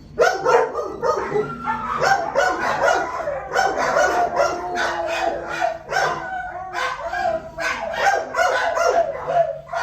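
Dogs in a shelter kennel barking and yipping, many short barks in quick succession with no break.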